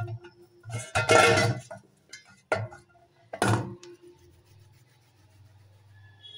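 Dough being worked by hand in a stainless steel bowl, knocking and scraping against the bowl several times, with the steel ringing briefly after the knocks. The loudest knock comes about a second in, with two more shortly after.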